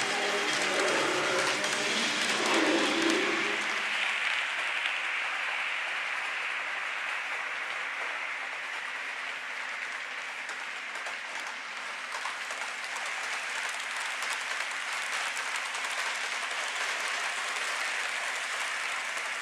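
A train hauled by a DB class 101 electric locomotive rolling past on the track, an even, steady rushing of wheels on rails. A few fading pitched tones at the start die away within the first few seconds.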